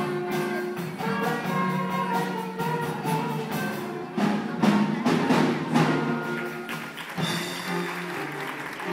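School band playing live: held chords with percussion hits, the hardest accents coming about four to six seconds in.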